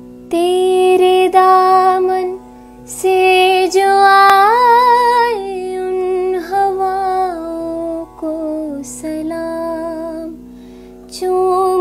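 Music: a slow melody of long, wavering held notes in phrases over a steady low drone, the wordless introduction to a song.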